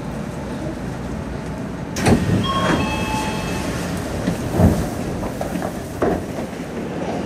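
Odakyu 3000-series electric train running slowly as it pulls into a station, its wheels knocking sharply over the track three times. From about two and a half seconds in, high steady squeals come from the wheels.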